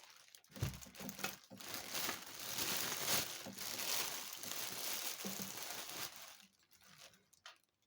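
Packaging being crinkled and rustled while a stainless steel pressure cooker is unwrapped, a steady crackling rustle that dies away about six and a half seconds in, leaving a few faint handling clicks.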